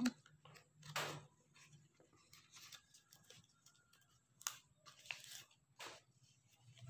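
Faint rustling and crinkling of a fresh banana leaf being rolled into a tube by hand, with a short crackle about a second in and a few more between four and six seconds in.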